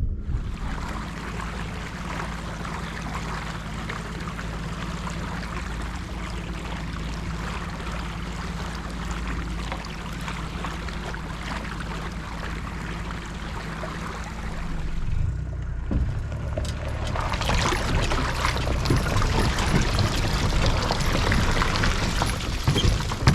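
Water rushing and splashing along a moving boat over a steady low hum, growing louder and rougher about two-thirds of the way through.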